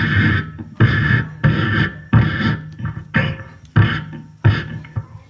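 Beatboxing: a steady groove of heavy bass kicks, each with a hissing snare-like burst on top, about one and a half beats a second over a low held hum.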